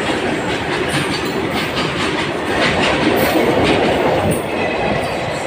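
Indian Railways freight train of BOXN open wagons rolling past close by: a steady rumble of steel wheels on rail with clickety-clack over the rail joints, a little louder in the middle. A locomotive's bogies roll past near the end.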